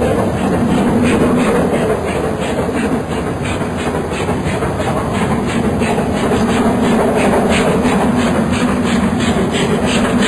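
GWR Castle class four-cylinder steam locomotive running, with a steady, even rhythm of beats over a continuous rumble and hiss.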